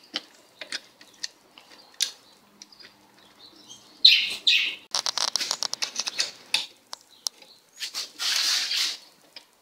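Metal and plastic clicks, taps and scrapes from the tail light bracket and its fasteners being handled and started on a motorcycle's rear subframe. About halfway through comes a fast run of clicks, and near the end a longer scrape.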